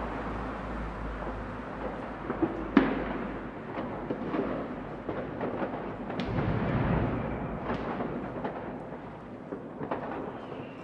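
Fireworks and firecrackers going off on all sides: a steady rumble of distant bangs, broken by many sharp, nearer cracks. The loudest bang comes about three seconds in.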